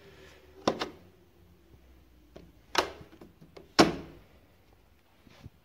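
Sharp plastic knocks and clicks of a car's leather-covered interior trim piece being handled: three loud ones, the first under a second in and two more about a second apart later, with a few fainter taps between.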